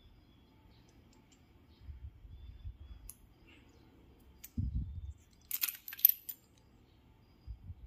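Small metal parts clinking together in a quick cluster a little past the middle, the loudest sound here, after a few dull handling thumps.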